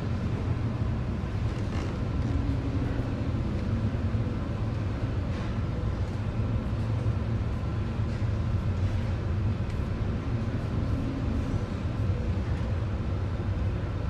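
Steady low rumble aboard a container ship ploughing through storm seas: wind and breaking water around the vessel, with a faint steady high tone over it.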